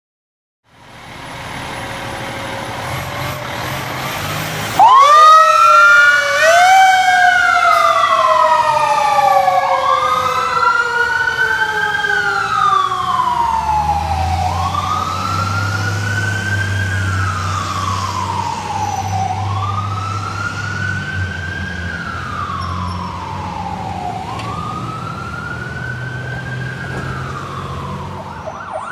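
A fire truck's engine rumbles, then about five seconds in its siren starts loud and runs in repeated slow wails, each rising quickly and falling away over a few seconds, about every five seconds. A low engine rumble runs under the siren.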